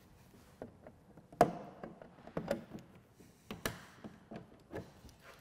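Plastic push-dart fasteners being worked out of a snowmobile's plastic body panels by hand: a series of short, sharp plastic clicks and taps about a second apart.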